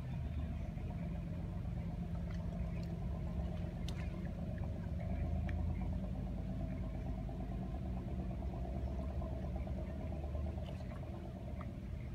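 An engine idling steadily, a low even hum, with a few faint ticks over it.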